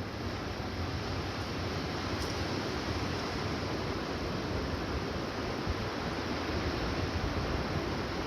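Steady rushing outdoor noise of wind on the microphone and surf at the shore, with an uneven low rumble underneath.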